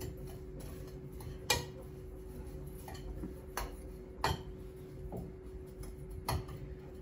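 Metal spoon clinking against a ceramic mixing bowl while stirring a breadcrumb topping: a few sharp, separate clinks spread out over several seconds.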